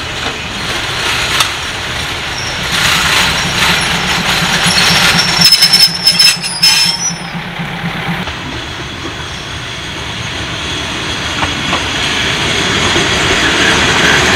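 State Railway of Thailand diesel railcar running past at close range, with its engine running and its wheels clattering over the rail joints. Near the middle, a high, thin wheel squeal lasts about a second and a half among sharp clicks, the loudest part of the sound.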